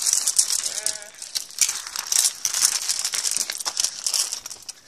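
Toy cars and other small toys rattling and clattering as they are pushed along and knocked together, a dense run of quick clicks.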